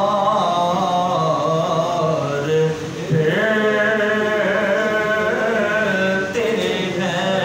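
A man's unaccompanied voice singing an Islamic devotional recitation in long, held melodic phrases. About three seconds in there is a short break, and then a new phrase starts on a higher pitch.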